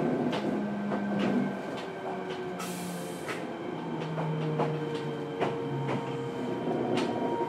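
Fukuoka City Subway 1000N-series train running, heard aboard the car: the traction motor and inverter tone steps down in pitch as the train slows, with sharp clicks from the rails and a short hiss about three seconds in.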